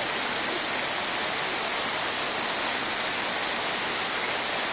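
Steady hiss of rushing water, unbroken and even.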